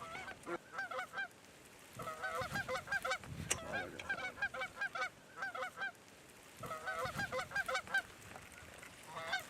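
Canada goose honks and clucks in quick strings of short, pitched calls, coming in several bursts with brief pauses between them.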